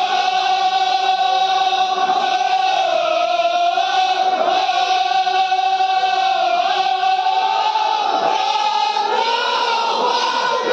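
Crowd of men chanting together in unison, a long held cry whose pitch wavers slowly.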